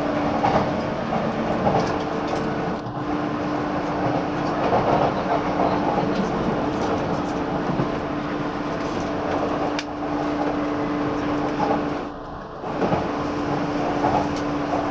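Running noise of a 185 series electric train, heard from inside the car: a steady rumble of wheels on rail with a constant low hum, dipping briefly twice, about three and about twelve seconds in.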